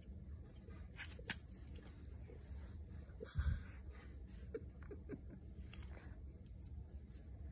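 Faint handling noise of a small plastic flashlight in a toddler's hands: a few soft clicks and taps, and one dull thump a little past the middle, over a steady low hum.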